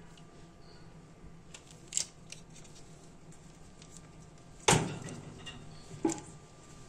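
Handling sounds on a table: a few light clicks, then a loud knock about two-thirds through that dies away quickly, and a smaller knock with a short ring just over a second later.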